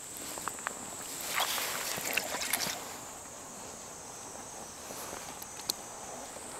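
Water splashing and lapping around a small craft on the water, with a louder stretch of splashing about a second and a half in and a few light clicks.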